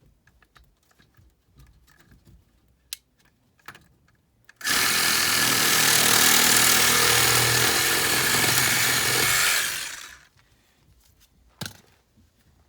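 A power saw cutting a length of pipe, with a steady motor whine for about five seconds before it stops. Before the cut there are a few light taps and clicks.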